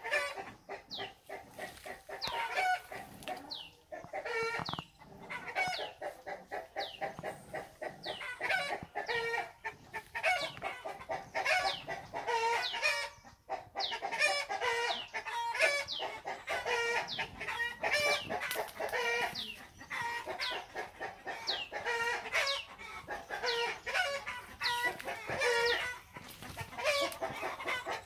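Chickens clucking and calling, a continuous stream of short calls, many of them sliding down in pitch.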